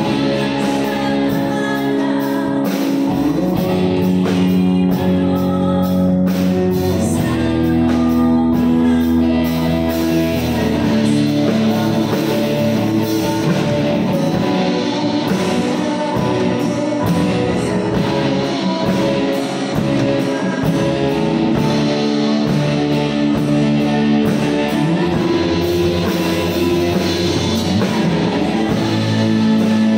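A live band playing a song with a singer: electric guitar, bass guitar, keyboard and drum kit.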